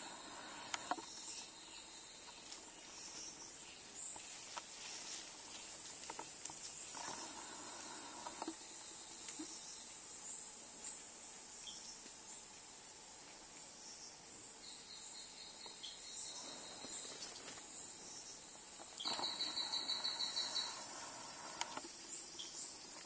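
Rainforest ambience dominated by a steady high-pitched insect drone, with scattered faint chirps and small clicks, and a short pulsing trill a few seconds before the end.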